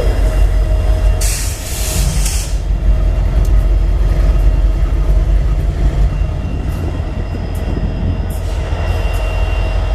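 Heavy freight coal train running, a loud steady low rumble with a steady mid-pitched tone over it. About a second in comes a burst of hiss lasting a little over a second, and a few short high ticks sound later.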